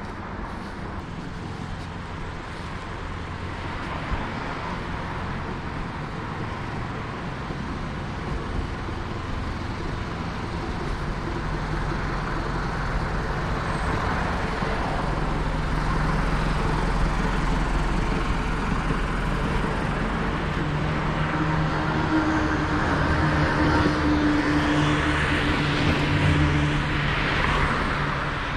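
City street traffic: motor vehicles running and passing, with engine hum and tyre noise that grow louder over the second half.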